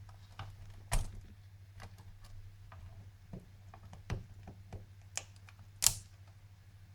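Scattered light clicks and taps of small plastic laptop parts and ribbon-cable connectors being handled and joined, with two sharper clicks about a second in and near the end. A low steady hum runs underneath.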